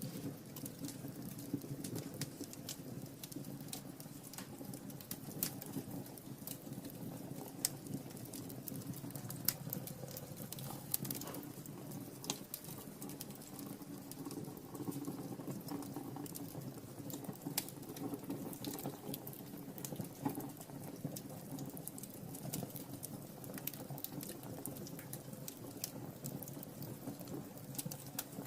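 Wood fire in a fireplace crackling, with many small snaps and pops over a low, steady rush of burning.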